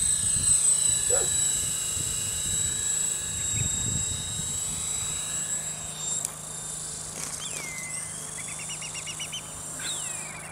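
Small electric collective-pitch R/C helicopter (Twister CP) in flight: a steady high-pitched motor and rotor whine that wavers in pitch as it manoeuvres and grows softer after about six seconds. Short, rapid chirps come in during the last few seconds.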